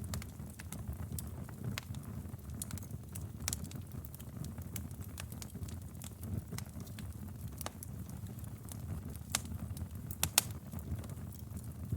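Wood fire burning in a fireplace: a low steady rush of flames with irregular sharp crackles and pops, a quick cluster of louder pops about ten seconds in.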